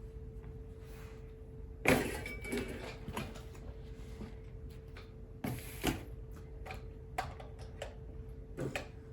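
Irregular plastic knocks and clicks as a small hand-cranked die-cut machine is handled and shifted on a table, the loudest knock about two seconds in.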